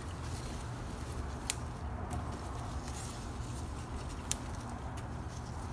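Faint rustling and a few sharp clicks as a hand handles strawberry plants and their fruit stems, over a steady low hum. The two loudest clicks come about a second and a half in and a little after four seconds.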